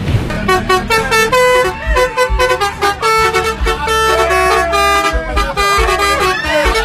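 Bus telolet horn, a set of multi-tone air horns, playing a quick tune of short pitched notes, with low thuds underneath in places.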